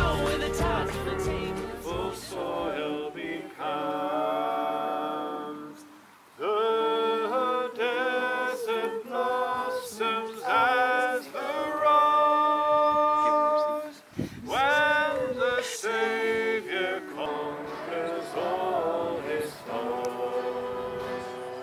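Voices singing without accompaniment, in sung phrases with two brief breaks. Bass-heavy backing music fades out in the first few seconds.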